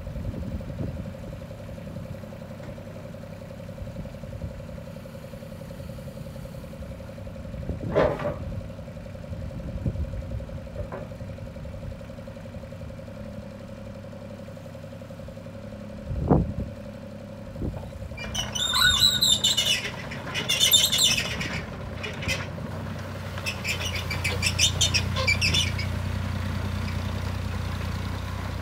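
Caterpillar 302.5C mini excavator running as its boom and bucket are worked: a steady engine hum with a steady whine, and two sharp metallic knocks about eight and sixteen seconds in. From about eighteen seconds on, bursts of rapid high-pitched squeaking come from the machine as it moves, and the engine grows louder under load near the end.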